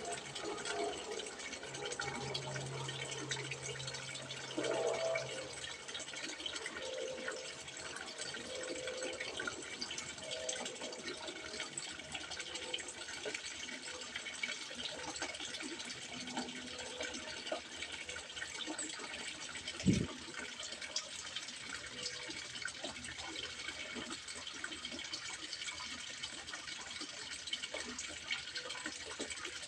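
Water trickling and splashing into a fish pond, a steady patter and gurgle. A low hum fades out in the first few seconds, and a single knock sounds about twenty seconds in.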